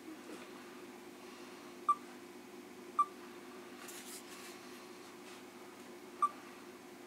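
Canon EOS 90D DSLR giving three short electronic beeps as its controls are worked, about two, three and six seconds in, over a faint steady hum, with a faint rustle of handling in between.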